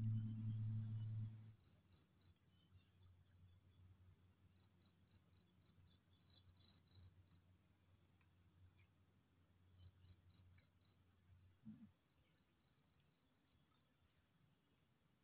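Faint insect chirping in runs of short, high, evenly spaced pulses, about six a second, with pauses between the runs. A low steady hum cuts off about a second and a half in.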